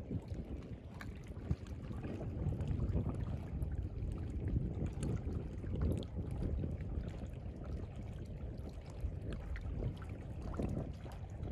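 Wind rumbling and buffeting on the microphone over shallow seawater, with faint small ticks and splashes of water lapping among the rocks.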